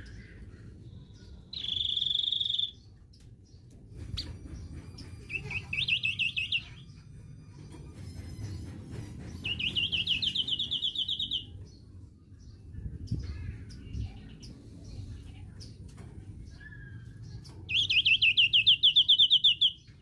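A songbird singing four separate fast trills of rapidly repeated high notes, each lasting one to two seconds, the last the loudest, with pauses between them.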